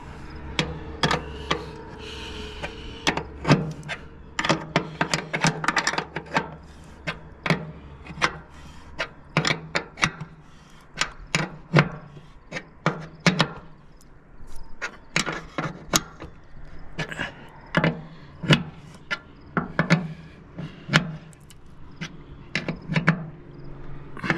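Open-end wrench turning and clinking on the bolts of a grain pump's sheet-metal cover: an irregular run of sharp metallic clicks and taps, sometimes several a second, as the cover is bolted up.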